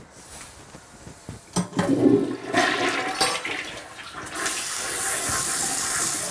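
A toilet flushing: a sharp click about a second and a half in, then rushing, gurgling water that settles into a steady, louder rush.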